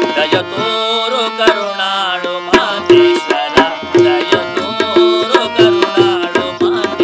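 Singing accompanied by a harmonium and tabla. The harmonium holds steady chords under a quick tabla rhythm, with the drum's ringing note struck again and again.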